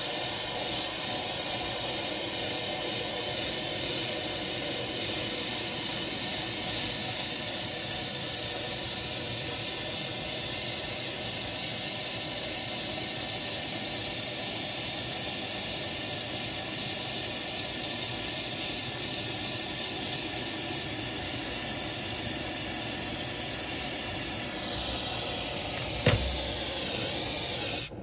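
Oxyacetylene torch flame hissing steadily as it heats 3 mm steel plate cherry red for bending. There is a single sharp click about two seconds before the end.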